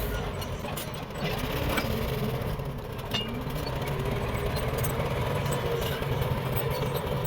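Bulldozer's diesel engine running steadily, its pitch wavering up and down a little, with scattered light clanks.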